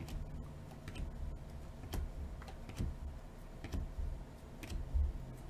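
Glossy Panini Mosaic trading cards being flipped through by hand: light clicks and snaps as each card is slid off the stack, about one a second.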